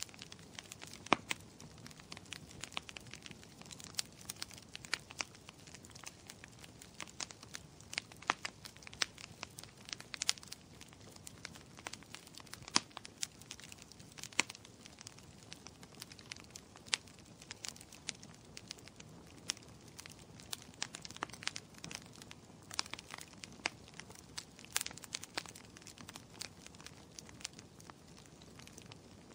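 Faint, irregular crackling: sharp clicks at uneven intervals, a few each second, over a low steady hiss.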